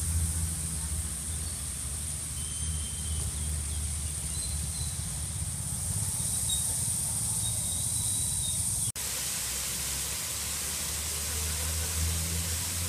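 Vehicle engine running steadily, a low hum under a constant hiss. The sound cuts out for an instant about nine seconds in.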